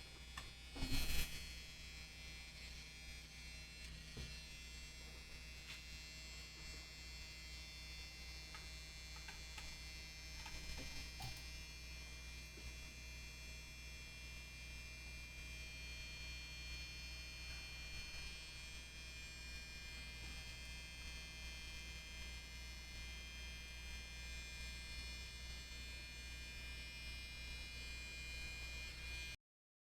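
Steady electric hum and buzz of a small motor on the repair bench, with a short knock about a second in. The sound cuts off abruptly near the end.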